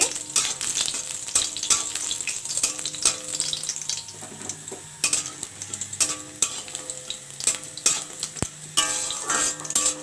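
Bori (dried lentil dumplings) and panch phoron frying in hot oil in a metal kadai, with a steady sizzle. A metal spatula stirs and scrapes against the pan in quick, irregular clinks.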